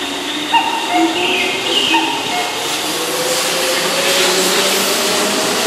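Keihan 2200-series electric train pulling out of the platform, its motor whine rising steadily in pitch as it picks up speed. There are a few sharp knocks in the first second or two.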